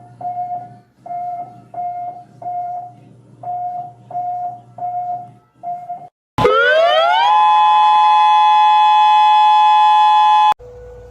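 Mock Emergency Alert System alarm tones: repeated short electronic beeps in groups of three. About six seconds in, a tone sweeps upward into a loud, steady two-tone attention signal, which cuts off abruptly about four seconds later.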